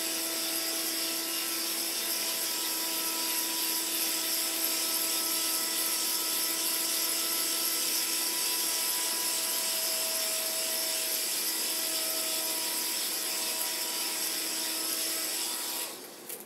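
A tiny Hoverbot toy drone's motors and propellers whirring steadily while it flies, then cutting out suddenly near the end as it settles on the floor.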